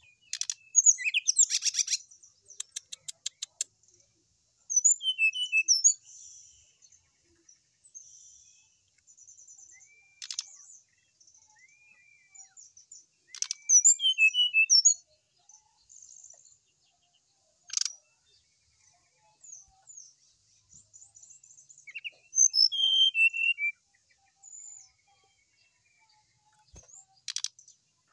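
Brown-chested jungle flycatcher singing in bursts of high, fast trills and chatters, with a few short down-slurred whistles and pauses between phrases; the song is full of mimicked phrases.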